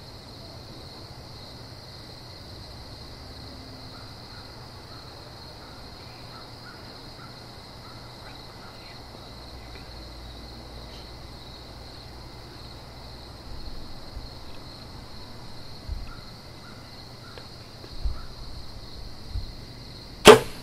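Steady insect chorus, with a few soft rustles and thumps in the last seconds, then one sharp, loud crack about twenty seconds in: a bow shot and the arrow striking a whitetail deer at close range.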